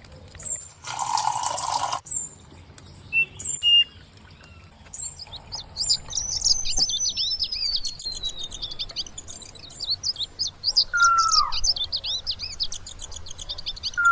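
Birds calling: short high chirps at first, then from about five seconds a dense twittering chorus with a long falling whistle, and lower falling calls near the end. About a second in, a rushing hiss lasts about a second.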